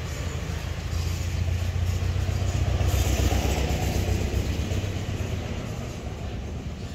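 A motor vehicle's engine with a low, steady hum that grows louder about a second in, peaks near three seconds, then fades, as of a vehicle passing by.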